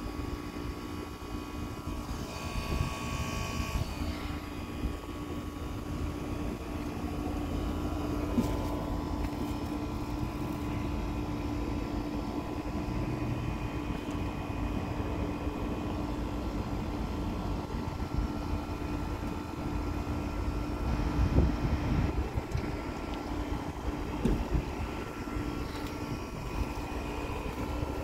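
Bryant Legacy Line 214DNA heat pump's outdoor unit running a defrost cycle: a steady mechanical hum with a few steady tones. It is a dry defrost, the coil not frozen.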